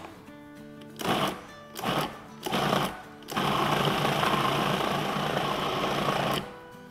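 Electric food processor pulsing three short times, then running steadily for about three seconds before stopping, grinding boiled meat and lentils into shami kebab mixture.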